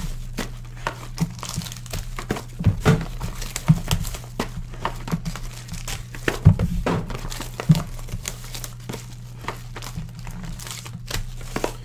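Hands opening a cardboard trading card box and handling foil-wrapped packs: irregular crinkling of foil and paper with taps and scrapes of cardboard.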